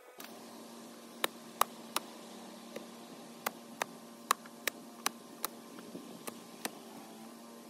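A long-handled chopping tool striking roots and dirt beneath a tree stump, about a dozen sharp chops at an uneven pace of roughly two a second, over a steady low hum.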